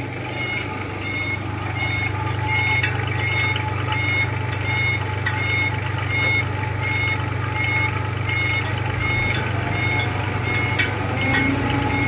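Small 3.5-tonne tandem road roller's diesel engine running steadily as it climbs steel loading ramps onto a trailer. A reversing alarm beeps about one and a half times a second, with occasional sharp clicks.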